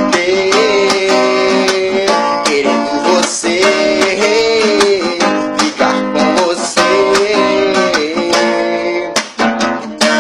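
Acoustic guitar strummed in a steady rhythm, chords ringing between strokes, with a sustained melody line wavering above the chords.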